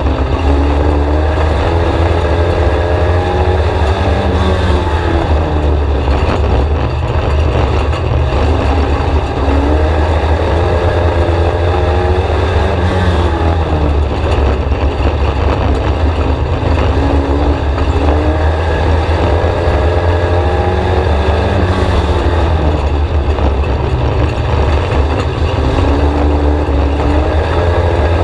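A VW Scirocco race car's four-cylinder engine at racing speed, heard loud from inside the cockpit. The revs rise and fall again and again as the car laps the oval, over a heavy low rumble.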